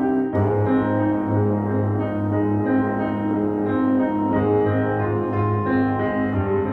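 Background piano music, a steady run of notes and chords.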